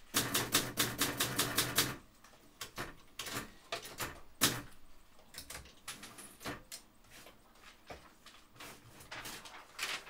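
Office ambience of keys being typed: a fast, loud run of typing clicks, about seven a second, for the first two seconds, then sparser scattered clicks and taps, with a short flurry near the end.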